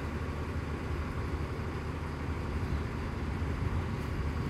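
Mercedes-Benz OH 1626 bus diesel engine idling steadily, a low even rumble.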